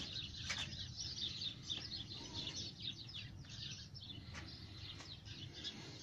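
Small birds chirping: a quick, continual run of short, high, falling chirps, over a faint steady low background noise.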